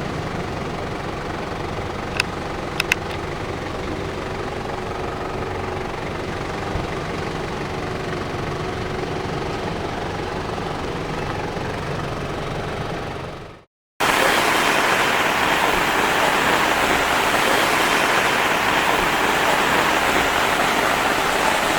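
Steady road and engine noise inside a moving car, with a few light clicks about two to three seconds in. After an abrupt cut, heavy rain pours in a loud, steady hiss.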